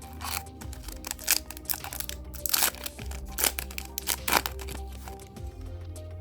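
Foil booster pack wrapper crinkling and tearing as a Yu-Gi-Oh! pack is ripped open, a run of sharp crackles. Background music plays throughout.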